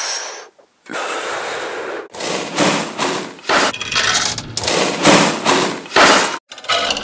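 Slot machine sound effects: repeated bursts of mechanical rattling noise, broken by short gaps.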